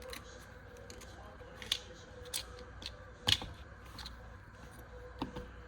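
Scattered sharp clicks and snaps of a Milwaukee Fastback folding utility knife being handled while blades are loaded, about half a dozen, the loudest a little past three seconds in, over a faint steady hum.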